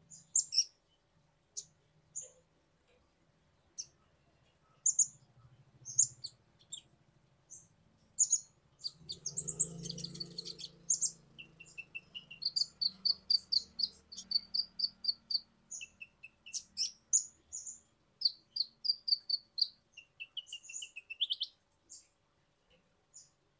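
Male van Hasselt's sunbird singing: sharp, high chirps at first, then fast twittering trills through the middle and latter part, with a soft rustle about ten seconds in.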